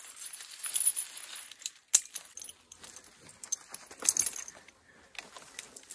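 A bunch of keys jingling and clinking as they are handled, with scattered light metallic clicks; one sharp click about two seconds in and a louder jingle about four seconds in.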